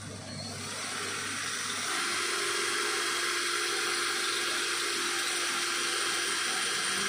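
MailTank 32V brushed cordless hammer drill running steadily as its bit cuts into a thin-walled hollow steel tube. The sound builds over the first second or two, then holds steady with a constant whine.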